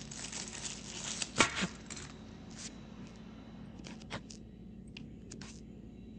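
Small plastic parts of a selfie-stick gimbal being handled and fitted together: a few scattered light clicks and taps over a faint steady hum.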